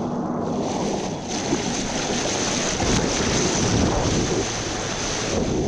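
Wind buffeting the microphone and water rushing past an electric hydrofoil surfboard (efoil) moving at speed on the lake.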